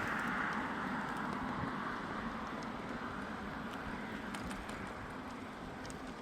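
Tyre noise of a vehicle driving past on asphalt, loudest at the start and fading away.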